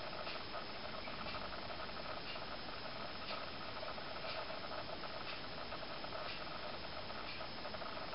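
A faint, regular tick about once a second over a steady hiss.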